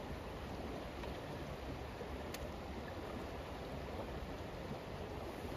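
Steady rush of flowing creek water, with one faint click a little over two seconds in.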